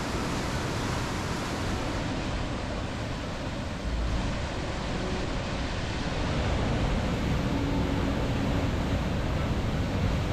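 River in spate rushing over rocks and a waterfall pouring, a steady rush of water. It steps up in level about 4 seconds in and grows louder again about 6 seconds in.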